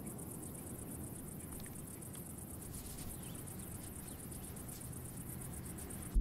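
Steady, high-pitched insect trill with a fast, even pulsing, over a faint low background rumble.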